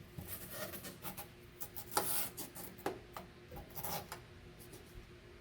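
Masking tape being pulled off the roll and pressed into place: short rustles and small clicks, the loudest about two seconds in.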